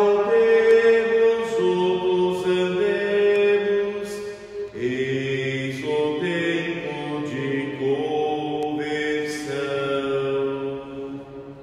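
Slow Lenten entrance hymn sung in Portuguese, a voice holding long notes that step from one pitch to the next, fading toward the end.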